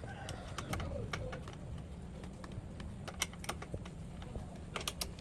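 Irregular sharp clicks and taps, bunched in quick runs in places, over a low steady rumble.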